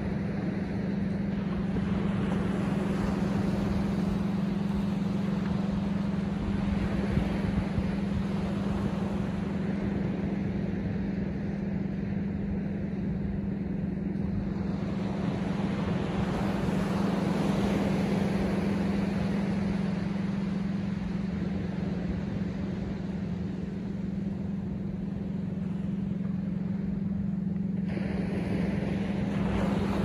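Ocean surf breaking and washing up a sandy beach, swelling and easing every few seconds, over a steady low hum.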